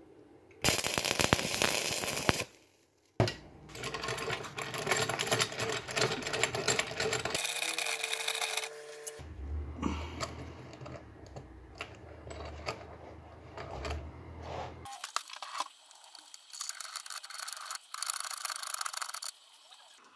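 Welding a bent threaded-rod handle onto a vise lead screw, in several short cuts: harsh crackling noise that starts and stops abruptly, with a low hum under it through the middle stretch.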